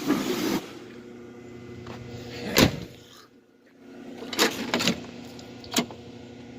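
Sharp clicks and clunks of the car's hood being released and opened, the loudest about two and a half seconds in and a few smaller ones later. The hood belongs to a 1996 Oldsmobile Cutlass Ciera.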